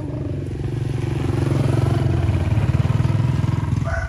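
Motorcycle engine running close by, its rapid low pulsing growing louder over a couple of seconds and then dropping off near the end.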